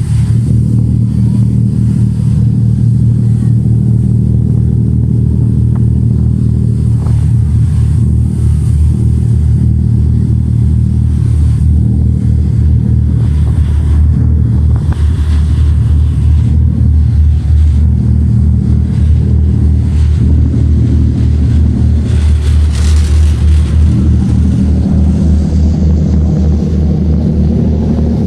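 Large passenger ferry's engines running with a steady, loud low drone.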